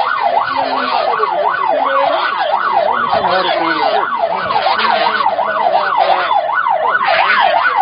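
Police siren in fast yelp mode: a loud, piercing tone sweeping up and down about three times a second without pause.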